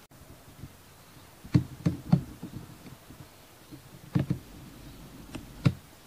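A series of sharp, irregular knocks, in small clusters of two or three with pauses between them.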